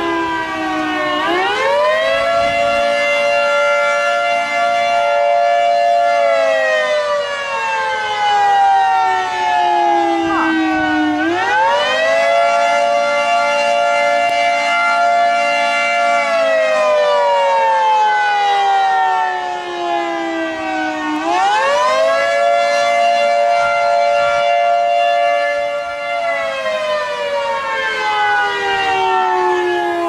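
Outdoor tornado warning siren wailing: its pitch climbs quickly, holds steady for about five seconds, then slides slowly down, the cycle repeating about every ten seconds. It is sounding a tornado warning.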